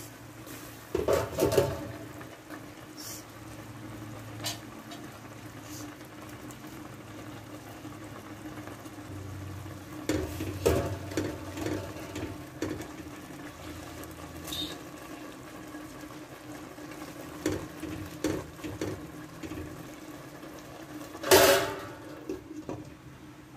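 A stainless steel pot of noodle soup boiling, with a utensil knocking and clinking against the pot as vegetables are added and stirred in. Near the end the glass lid is set back on the pot with a sharp clatter, the loudest sound.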